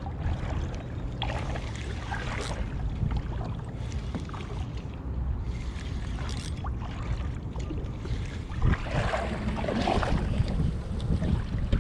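Wind buffeting the microphone in a steady low rumble, with scattered light knocks and clicks and a louder patch of rustling noise near the end.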